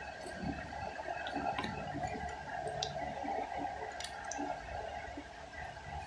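Metal spoon scraping and clicking against an aluminium foil tray of rice, a few sharp ticks among soft rustling, over a steady background hum.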